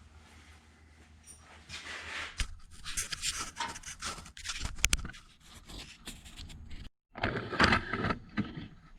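Sheet metal and hand tools being handled on a workbench: irregular scraping and rustling with sharp clanks and knocks, loudest about five seconds in.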